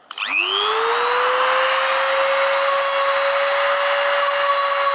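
Handheld rotary tool with a small abrasive drum switched on: its whine rises in pitch as it spins up over about half a second, then holds steady and high as it grinds old epoxy off an oar shaft.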